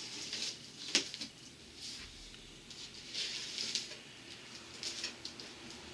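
Hands working at the packing tape on a cardboard box: scratchy rustling and scraping of tape and cardboard, with a sharp click about a second in.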